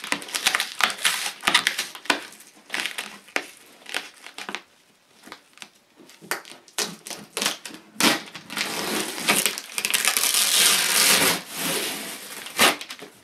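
Clear packing tape being picked at and peeled off a cardboard box: irregular crackling and ripping, with a longer continuous tear in the second half.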